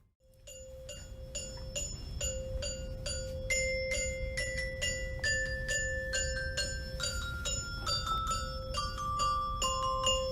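Instrumental music: bell-like mallet-percussion notes repeated about three times a second over a steady held note, the melody stepping gradually downward in pitch.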